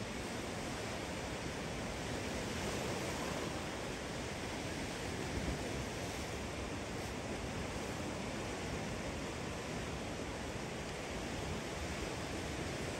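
Steady rushing noise of surf washing onto a sandy beach, mixed with wind.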